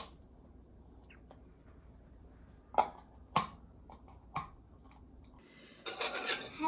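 A few isolated sharp clicks over quiet room tone. Near the end comes a rising clatter of dishes and cutlery at a meal table.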